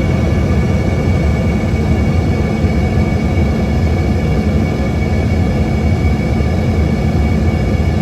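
Cabin noise of an Embraer ERJ-145 in flight: the steady rush and low rumble of air and the rear-mounted Rolls-Royce AE3007 turbofans, with a fixed high whine over it.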